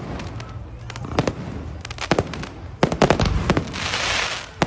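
Fireworks going off: an irregular run of sharp bangs and pops, with a loud hissing burst near the end.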